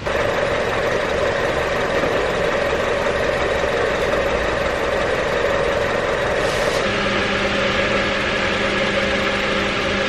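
A car engine idling steadily, the donor car's engine running for a jump start. A lower steady tone joins the hum about seven seconds in.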